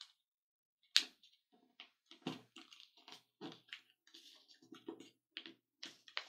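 Sheet of paper being folded and creased by hand: an irregular run of short crinkles and rustles, the sharpest about a second in.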